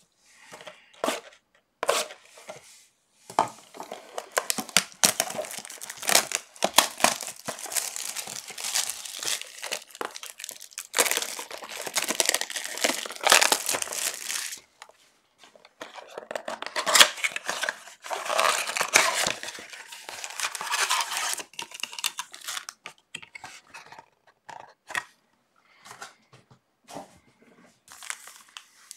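Blaster boxes and packs of baseball cards being ripped open by hand: tearing and crinkling of packaging in two long stretches, with short rustles and clicks between and after.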